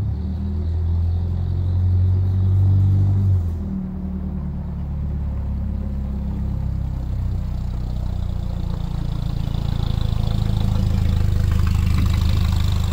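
Toyota Van Wagon engine running through a newly fitted replacement muffler that is not yet welded or adapted to its oversized pipe, heard as a steady low exhaust drone. The note swells about two seconds in, drops back, and swells again near the end.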